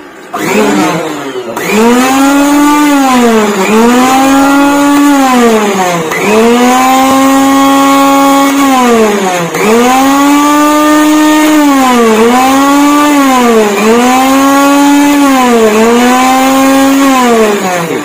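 Juicer mixer grinder's brushed universal motor running with no jar fitted. It spins up to a steady hum and winds down again about eight times as the speed buttons are pressed and released, testing the newly fitted selector switch.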